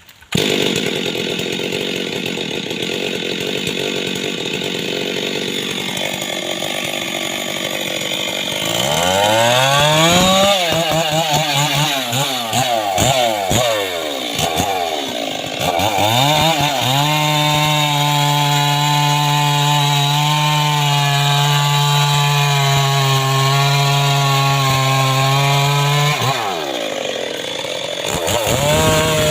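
Homemade chainsaw engine running steadily, then revved up around eight seconds in, with the pitch rising and falling for several seconds. It holds at high revs for about ten seconds, drops back briefly near the end and revs up again.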